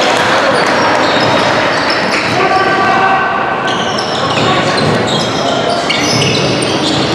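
Basketball being dribbled on an indoor court during a game, with many short high squeaks and voices over the steady din of the gym.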